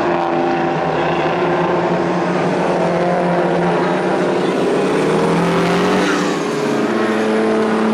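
Engines of racing semi-truck tractors running at speed around a dirt oval, a steady engine drone that drifts slowly in pitch with a slight rise midway.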